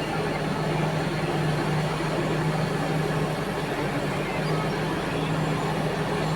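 Diesel engines of heavy mining equipment running steadily: a constant low hum with no distinct impacts.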